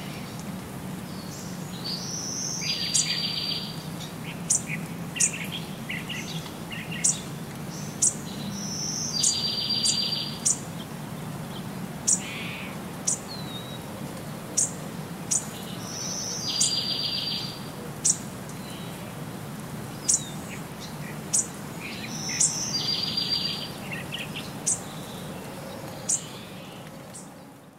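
Songbirds chirping: short sharp high chirps, with a rapid trill of about a second that comes back about every seven seconds, over a steady low hum.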